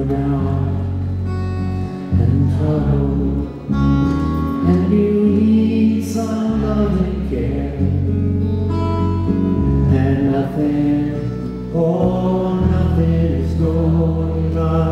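Live song: a man singing with acoustic guitar accompaniment, over a deep bass line that moves every second or two.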